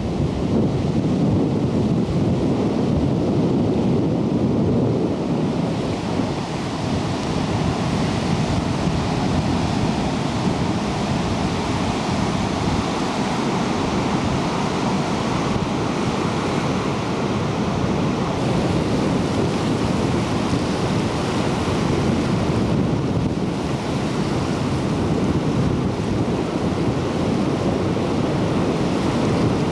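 Ocean surf washing over a rocky shore, mixed with wind buffeting the camcorder microphone: a steady low rumbling rush.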